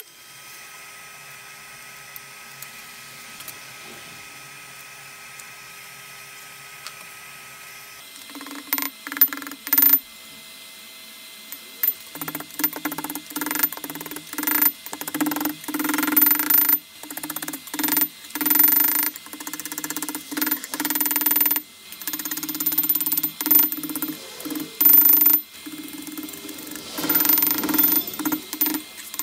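Forging work: a steady motor hum of the forge blower runs throughout. From about eight seconds in, a louder hum comes in along with irregular sharp hammer blows on hot steel at the anvil, some of them ringing.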